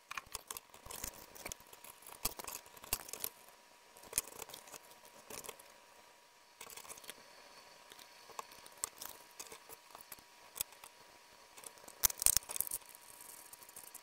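Plastic pocket digital scale being handled on a desk: scattered light clicks, taps and knocks of its case and hinged lid being opened and turned over, with a louder run of clicks near the end.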